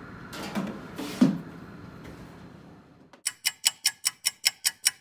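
Metal cake pans clunking a few times against the rack of a countertop toaster oven as they are set in. From about three seconds in, a stopwatch ticking sound effect takes over: sharp, even ticks, about five a second.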